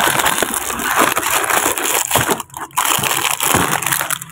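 Plastic wrappers and cardboard biscuit boxes rustling and crinkling as they are rummaged through and pulled out. The crackling is loud and continuous, with a short break a little past halfway.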